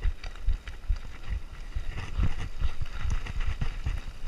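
Mountain bike rattling over rough ground: many quick, irregular knocks and thumps from the frame, chain and suspension, over a steady hiss of tyres on dirt and gravel.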